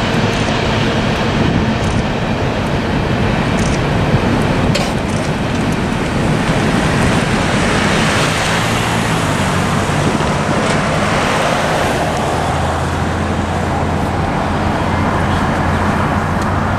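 Road traffic crossing the railroad tracks on wet pavement, with tyre hiss swelling as a car passes about halfway through. A steady low hum sets in near the end.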